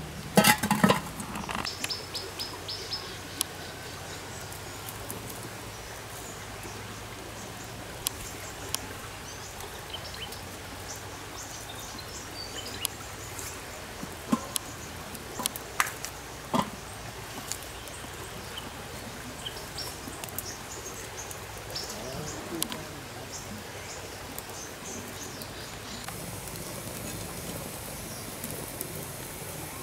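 A burst of clatter and knocks from a metal cooking pot and sticks being handled, about a second in, then scattered light knocks of sticks over a steady outdoor background with birds chirping now and then.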